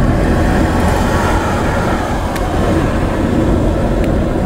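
Steady road and wind noise of a car driving at highway speed, heard from inside the car: an even low rumble with hiss above it.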